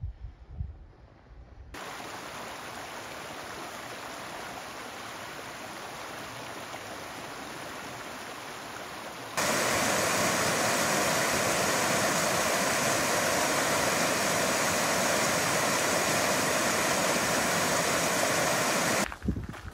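Fast rocky stream cascading into a road culvert: a steady rush of white water. It steps up sharply in level about nine seconds in and cuts off just before the end.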